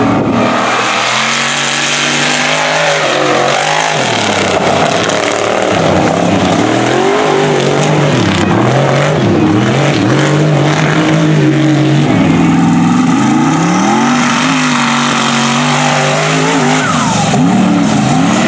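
Mega truck engine revving hard under racing load, its pitch climbing and dropping again and again with the throttle.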